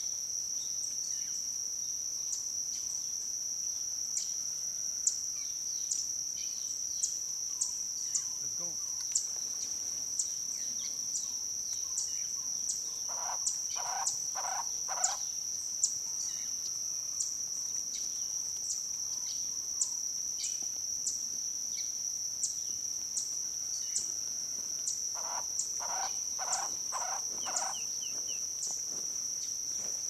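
A steady, high-pitched insect drone with a short tick about every two-thirds of a second. Twice, about halfway through and again near the end, a Cuban trogon (tocororo) gives a run of four or five evenly repeated low notes.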